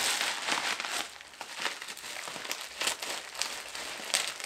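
Plastic bubble wrap crinkling and crackling as it is pulled off a packaged car part: a dense burst of crinkling at first, then sparser crackles.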